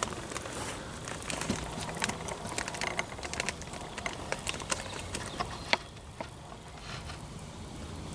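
Campfire embers crackling with irregular sharp pops over a soft hiss, the fire burned down and smoking; one louder pop just before the sixth second.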